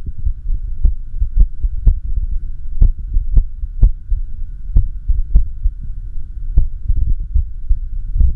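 Heartbeat sounds from an echocardiograph recording: low thumps over a steady hum, coming at uneven intervals, some beats close together and others after longer gaps. The uneven spacing is the sign of an irregular heartbeat, an arrhythmia.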